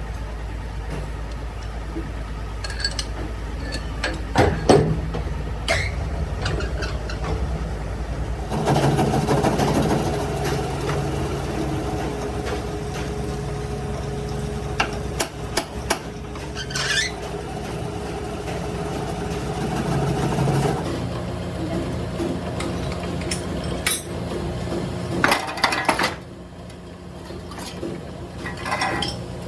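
Workshop machinery running steadily, with scattered metallic clinks and knocks. The machine's note changes about eight seconds in and eases off in the last few seconds.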